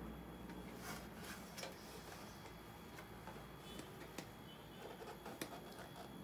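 Faint, irregular clicks and light taps from hands handling the opened dehumidifier's plastic casing and copper pipes, the sharpest click about five seconds in, over a low steady hum.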